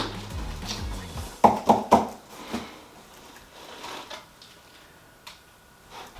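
Cardboard box being handled and rummaged through: three quick knocks and rustles about a second and a half in, then softer scattered rustling as a plastic-wrapped carrot-shaped cat scratcher is lifted out.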